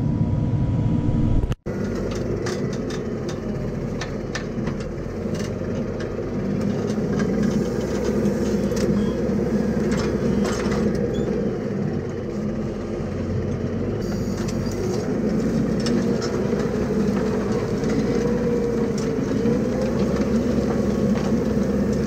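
Tractor engine running steadily under load while ploughing, with scattered clicks and rattles from the reversible plough working through the soil. The sound drops out briefly about a second and a half in.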